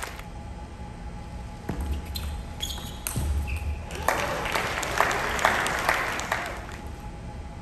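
Sparse clicks and taps of a table tennis ball bouncing between points. A couple of short high squeaks come a few seconds in, and a quicker run of taps follows from about four seconds in.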